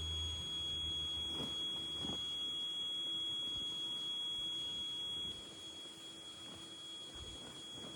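A steady high-pitched tone, a little quieter from about five seconds in, with a couple of faint knocks early on.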